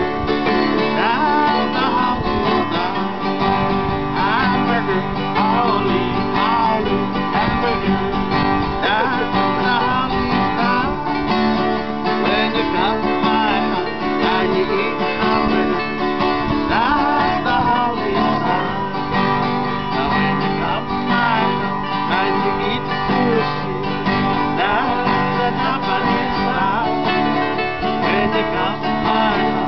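Acoustic guitars strummed together, with a man singing along, in a relaxed sing-along song.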